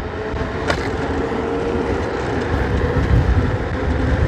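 The dual 800 W motors of a KuKirin G1 Pro electric scooter whine steadily, the pitch rising slowly as it picks up speed, over a growing rumble of wind and tyres. There is a short click about a second in.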